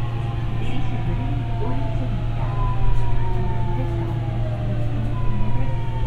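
Busan Metro 2000 series subway car running, heard from inside the car: a steady low rumble under a traction motor whine of several tones that slowly fall in pitch as the train slows.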